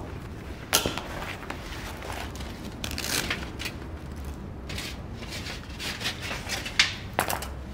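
Things being handled: a few sharp, irregular clicks and knocks with some rustling in between, over a low steady background rumble.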